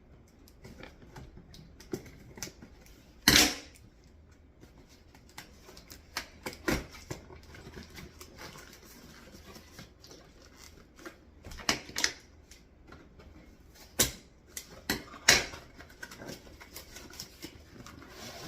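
Unboxing a shipping package with a tripod inside: rustling packaging broken by a string of sharp clicks and knocks, the loudest about three seconds in.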